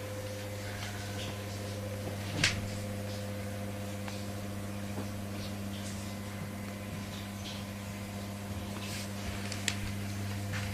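A steady low electrical hum, with one sharp click about two and a half seconds in and a few faint clicks later.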